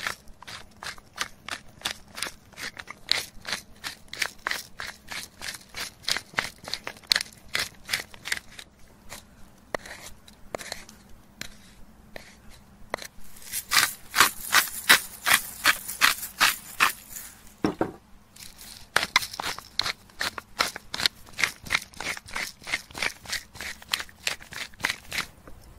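A knife blade scraping along a beef rib bone in quick repeated strokes, about three a second, cleaning the bone of a tomahawk steak; the strokes grow sharper and denser about halfway through.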